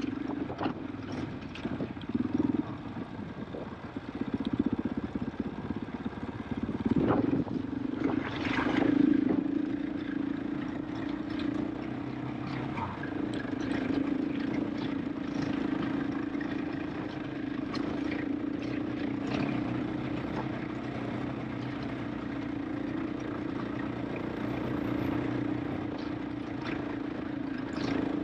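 KTM 500 EXC-F single-cylinder four-stroke enduro engine running at low, steady revs while the bike is ridden over a loose rocky trail, with scattered knocks and rattles from the stony track and a brief louder surge about seven to nine seconds in.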